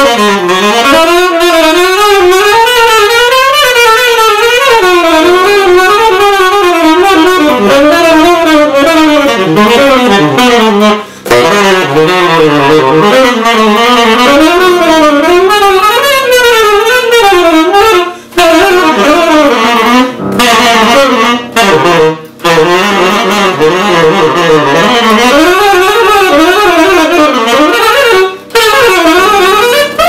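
Tenor saxophone playing fast runs of short melodic cells up and down, some inside C minor and some outside it, for tension and release. A piano holds a sustained C minor chord underneath. The line breaks off briefly for breath about five times.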